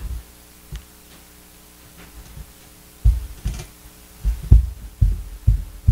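Irregular dull low thumps and knocks starting about three seconds in, after a quiet stretch: a tablet being handled and tapped on a desk, picked up by the microphone.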